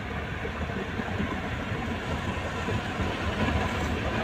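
Steady cabin noise inside a Honda Civic: a low rumble with an even hiss over it while the car's engine runs.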